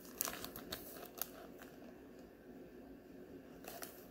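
Clear plastic wrapper around a wax melt bar crinkling faintly as it is handled: a few soft rustles and clicks in the first second or so, then again near the end.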